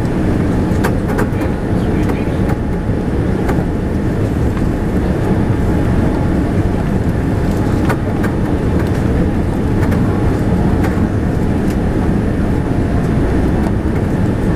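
Steady cabin noise of a Boeing 787-10 descending on approach: a dense, even rumble of engines and airflow heard inside the cabin from a window seat over the wing, with a few faint clicks.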